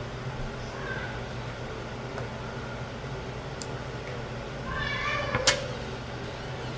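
A short high-pitched cry about five seconds in, followed at once by a sharp click, over a steady low hum with a few faint clicks.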